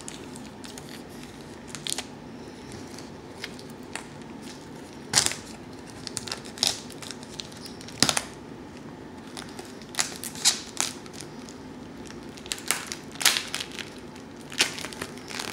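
Plastic shrink wrap on a sealed VHS case crackling and tearing as fingers pick at it and peel it off: irregular crinkles, with a few sharp, louder crackles scattered through.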